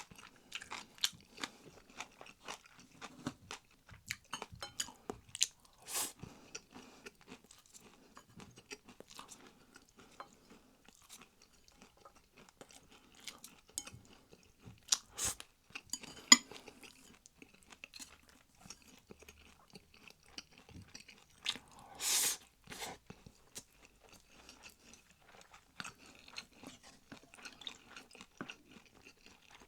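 Close-miked chewing and crunching of food, with many small wet clicks of the mouth and now and then a louder crunch or clack, the loudest about 22 seconds in.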